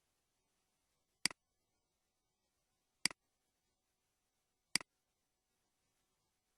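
Three sharp clicks, evenly spaced about a second and three-quarters apart, each a quick double click, with near silence between them.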